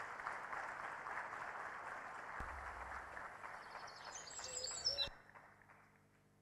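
Audience applauding, a steady clapping that stops about five seconds in, with a few short high chirping tones just before it ends. It then fades to near silence.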